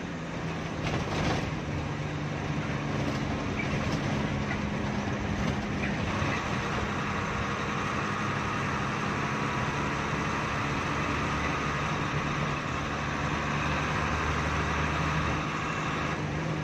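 Hino AK3HR Ranger-chassis bus engine running steadily as the bus drives along, heard from inside the cab. A higher whine joins about six seconds in and drops away near the end.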